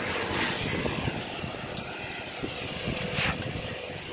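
Road traffic: a motor scooter passing, louder in the first second and then fading, over a steady rushing noise.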